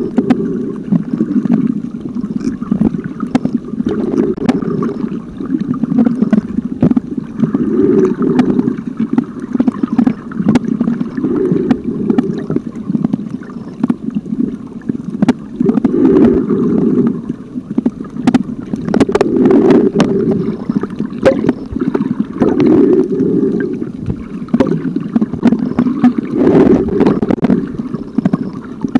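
Muffled underwater rumble of water surging around a waterproof compact camera's housing and microphone in a strong current, rising and falling unevenly, with scattered sharp clicks.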